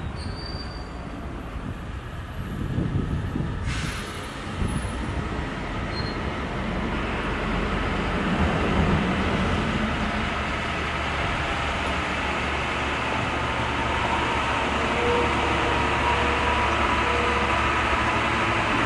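A small diesel shunting locomotive's engine running as it slowly hauls a 209 series train along the track. The rumble grows louder from about seven seconds in as it draws near, with a thin steady wheel squeal in the latter part.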